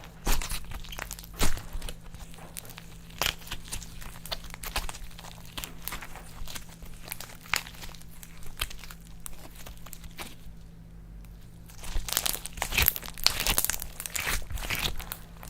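Slime being squished and kneaded by hand: sticky clicks, pops and crackles, quieter for a moment about two-thirds of the way through, then a dense run of crackling near the end.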